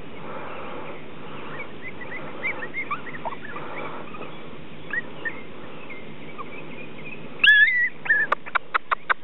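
Ruby Cavalier King Charles Spaniel puppy whimpering with faint high squeaks. Near the end it gives one loud, wavering yelp, then a quick run of about six sharp high yips.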